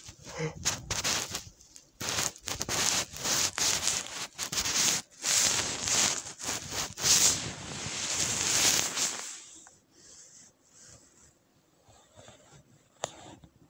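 Rubbing and scraping on a plastic insect case as it and the phone are handled, in a run of uneven scratchy strokes for about nine seconds. It then goes much quieter, with a couple of faint clicks near the end.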